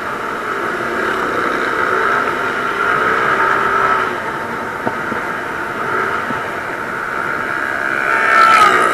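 Motorcycle engine running while riding, its pitch drifting up and down over a steady rush of road noise. A short, louder tone slides down near the end.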